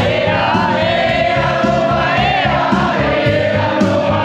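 Music: a German song in which a group of voices sings one long drawn-out line over a steady beat.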